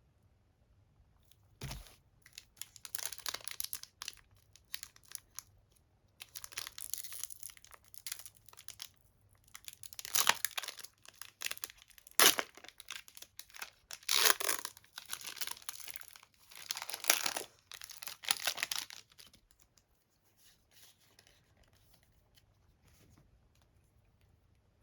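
Wrapping on a Pokémon TCG card collection being torn and crinkled by hand in irregular bursts, with a sharp knock about two seconds in and a sharp snap about twelve seconds in. It fades to faint handling near the end.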